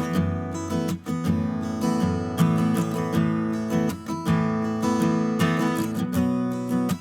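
Background music: a strummed acoustic guitar playing chords at a steady beat.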